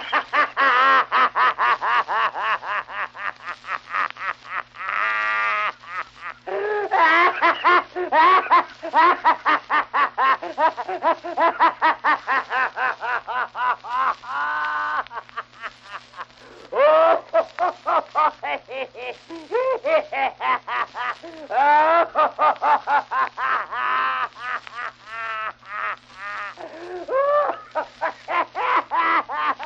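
A man laughing in long runs of rapid, repeated "ha-ha" pulses, about four or five a second, broken by brief pauses, with a steady low hum underneath from the old recording.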